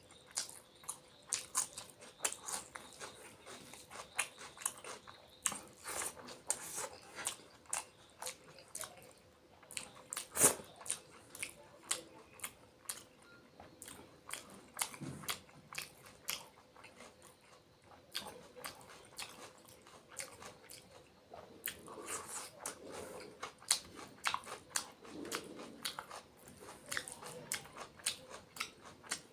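Close-up mouth sounds of a person eating a curry-and-rice meal: wet chewing and lip-smacking, made of irregular sharp clicks a few times a second, with one louder click about ten seconds in.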